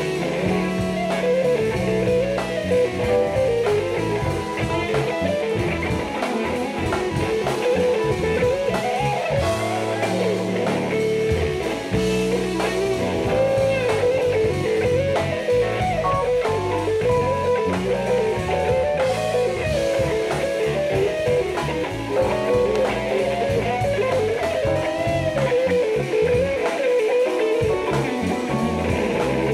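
Live jazz-funk band playing: a winding electric guitar line over drum kit and bass.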